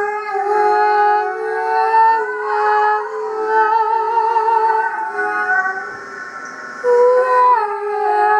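Several voices singing long held notes with vibrato, layered into a sustained chord that moves to new pitches every second or two; a louder, higher note comes in about seven seconds in.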